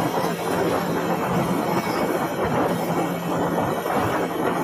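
Boat motor running steadily: a constant low hum under an even rushing noise from the moving boat.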